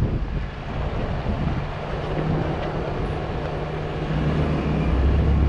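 Truck engine running while driving, a steady low rumble that grows louder near the end, with wind buffeting the microphone.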